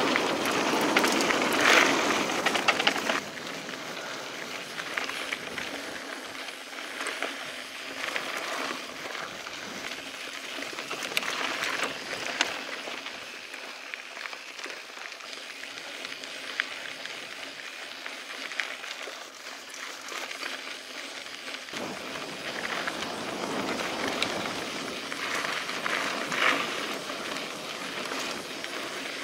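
Mountain bike rolling along a dirt trail: tyres crunching on gravel with the bike rattling and clicking over bumps. Louder for the first few seconds, then quieter.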